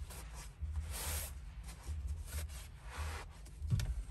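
Microfiber towel wiping across a wet, freshly applied PPF screen protector on a touchscreen, in irregular soft rubbing strokes, with a short knock near the end.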